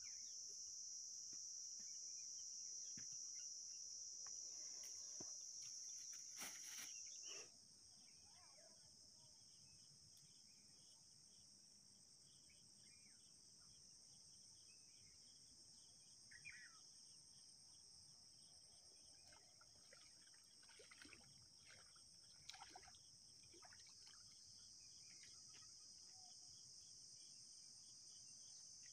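Faint, steady high-pitched drone of insects, which drops suddenly in level about seven seconds in and then carries on more quietly. A sharp click comes just before the drop, and scattered faint chirps follow later.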